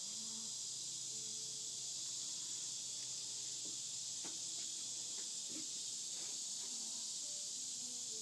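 Steady high-pitched hiss of an outdoor insect chorus, with a few faint clicks in the middle.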